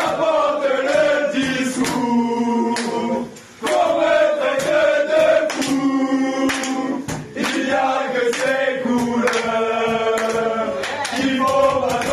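Football supporters singing a chant together, a mass of male voices holding sung notes, with sharp hits beating through it.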